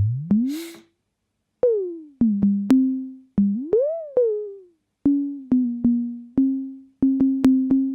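Dave Smith Instruments Tempest's filter self-oscillating as a near-pure sine tone, played as repeated short notes that decay quickly. The pitch glides up and down as the tone is tuned, then settles on one note that is struck rapidly several times near the end.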